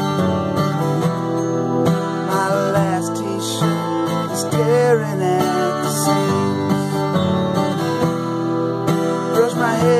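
Steel-string acoustic guitar strummed in a steady rhythm, playing chords as song accompaniment.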